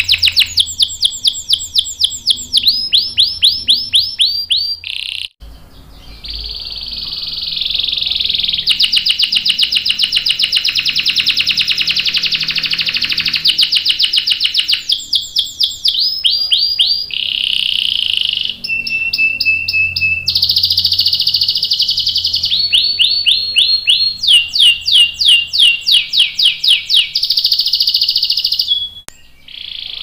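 Domestic canary singing a long, loud song of fast trills: rapid series of repeated notes that change pitch from phrase to phrase, with a long unbroken roll from about six to fourteen seconds in. The song breaks off briefly about five seconds in and again near the end.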